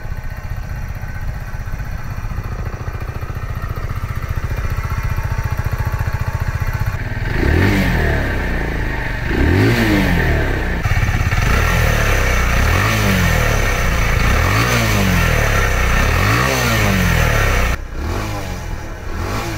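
Kawasaki Z125 PRO's 124 cc single-cylinder engine idling steadily, then revved by repeated quick throttle blips, each rising and falling back, from about a third of the way in. Near the end it drops back to a quieter running sound.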